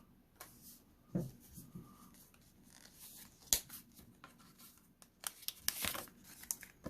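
Small Pokémon card pack wrapper being torn open and cards handled: scattered crinkles and paper scrapes, one sharp click about three and a half seconds in, and busier tearing and crinkling in the last couple of seconds.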